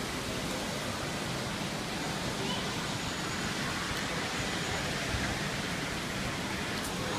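Steady, even rushing background noise of an airport terminal hall, with nothing standing out.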